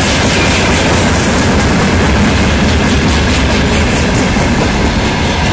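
Loaded freight wagons rolling past close by: a loud, steady rumble of steel wheels on rails, with repeated clacks as the wheels cross rail joints.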